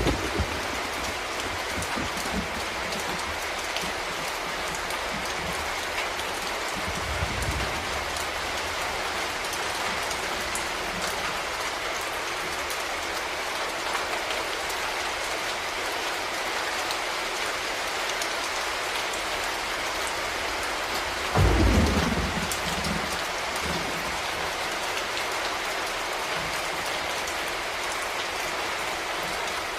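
Steady rain falling, a constant even hiss. Thunder rumbles low about seven seconds in, and a loud thunderclap with a deep rumble comes about two-thirds of the way through.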